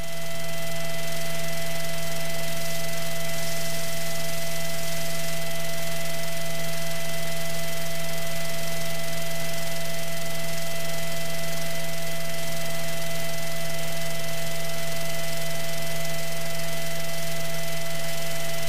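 Steady cabin noise of a Piper Archer III in flight: the four-cylinder Lycoming engine and propeller hum at a constant power setting under a loud rush of airflow. It holds level and cuts off suddenly at the end.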